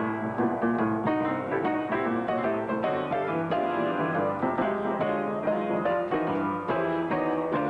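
Old upright piano played by two people at once, a tune of quick notes running steadily. The piano has gone untuned for some twenty years.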